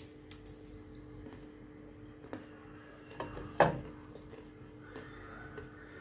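A crisp seeded cracker set down on a ceramic plate: a few light clicks and one sharp clack about three and a half seconds in, over a faint steady hum.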